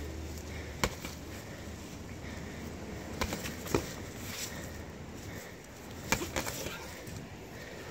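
Punches from padded boxing gloves landing with sharp slaps at irregular intervals: one about a second in, two around three and a half seconds, and a quick cluster near six seconds.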